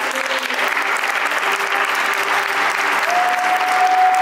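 Audience applauding at the end of a samba dance, a dense steady clapping. A single held tone comes in about three seconds in.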